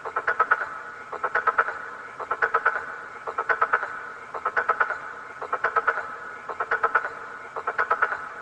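A frog croaking: each call is a quick rattle of several pulses lasting about half a second, repeated about once a second.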